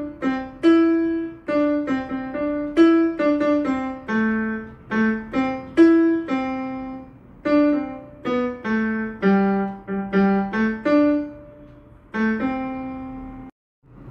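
Yamaha PSR-E473 portable keyboard played on a piano voice: a slow melody of single struck notes, some overlapping, that breaks off suddenly near the end.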